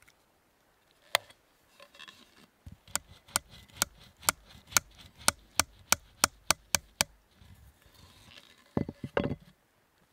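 The back of an axe head knocking a wooden peg into a raft log, locking the wooden wedges in place without nails or rope. There is a single knock, then a quick run of about fifteen sharp knocks that speed up, and a brief rough clatter near the end.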